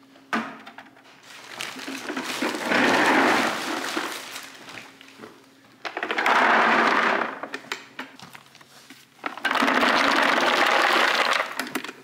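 Range cubes (dry pelleted cattle feed) being scooped from a bulk tote and poured into plastic buckets: three pours of about two seconds each, after a sharp knock near the start.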